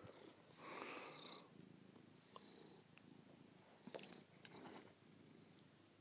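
Domestic cat purring softly and steadily, with a brief louder rustle about a second in and a few light clicks around four seconds in.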